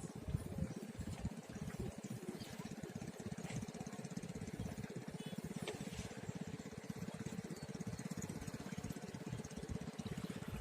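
A small engine running steadily at an even speed, a fast, regular pulsing.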